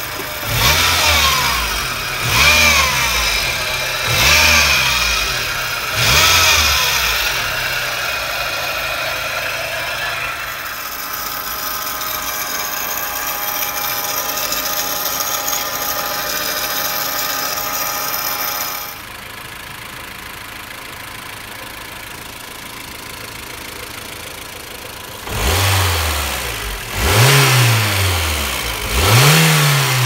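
Honda Civic Type R (EK9) B16B VTEC four-cylinder engine blipped four times in quick rises and falls. It then runs steadily with a high-pitched whine, which cuts off about two-thirds of the way through and leaves a quieter idle, and it is blipped three more times near the end. The abnormal noise comes from a failing air-conditioner belt tensioner bearing.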